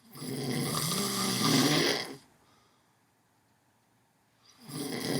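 A man snoring loudly: one snore of about two seconds, a pause of about two seconds, then the next snore starting near the end.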